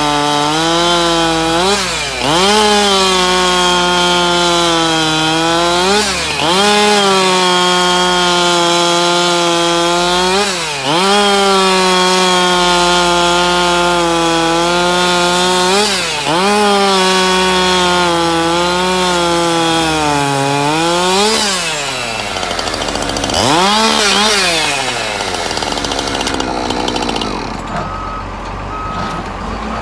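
Husqvarna chainsaw running at high revs, cutting wood; its high engine note dips briefly about five times and climbs straight back. Near the end it comes off the throttle, revs once more and falls away.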